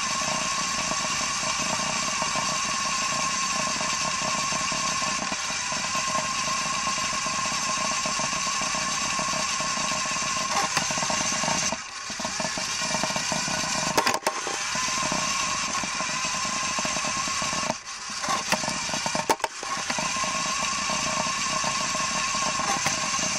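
Small electric motor and plastic gears of a motorised Lego car, heard from on board, whining steadily as it drives. The whine drops out briefly twice, a little before halfway and about three-quarters through, with a few sharp clicks after each drop.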